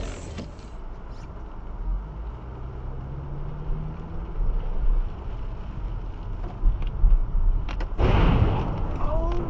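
Inside a car in the rain, road and engine noise runs steadily. About eight seconds in comes a sudden loud, harsh crash of noise lasting about a second as a box truck sideswipes the car. A short exclaiming voice follows near the end.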